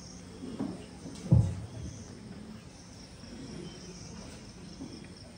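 Insects chirring steadily in a high, gently pulsing band, over a faint low hum. A single low thump comes about a second and a half in.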